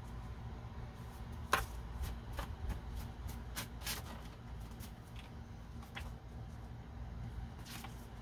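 A deck of oracle cards being shuffled and handled by hand: scattered soft card snaps and rustles, the sharpest about one and a half seconds in.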